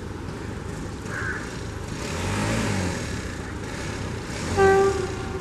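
Air horn of an Indian Railways WAP4 electric locomotive: one short blast about four and a half seconds in, over the steady rumble of the approaching express train.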